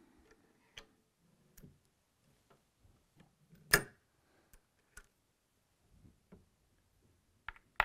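Scattered light metallic clicks and taps from a Lyman reloading press's on-press priming arm and a brass case being worked while priming, with one much sharper click a little under four seconds in.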